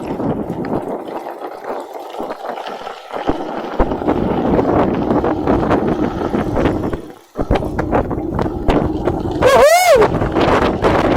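Wind buffeting the microphone and the rattle of a mountain bike on a fast dirt descent, with a brief wavering high-pitched sound near the end.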